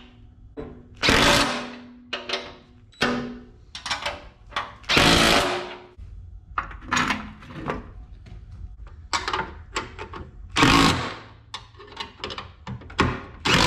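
Cordless impact driver run in a few short bursts, about 1, 5 and 11 seconds in, driving bolts, with metal clinks of a wrench, washers and bolts between.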